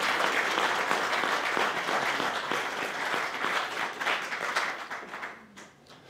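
Audience applauding, many hands clapping together, fading away about five seconds in.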